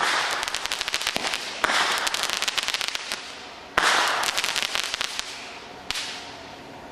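Backyard fireworks going off: rapid crackling pops over a hiss, with new loud bursts starting about two seconds in and again about four seconds in, and a single sharp crack near the end as it fades.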